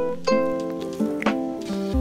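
Background music: a light plucked-string tune, like a ukulele, with a new note about every half second.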